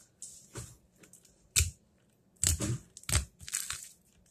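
Pink slime being squished, kneaded and stretched by hand on a tabletop, making irregular wet clicks and crackles in short spurts.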